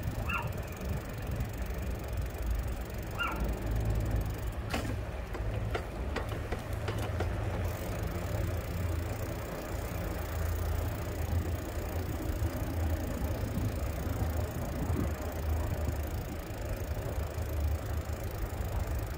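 Low, steady rumble of a vehicle creeping along at walking pace, heard from inside it. Two short high chirps come in the first few seconds, and a few sharp clicks about five to seven seconds in.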